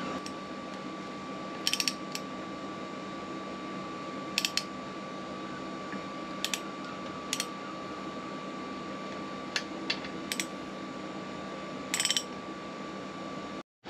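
Ratchet wrench clicking in about eight short bursts as the water pump housing bolts on an outboard's lower unit are tightened, over a faint steady hum.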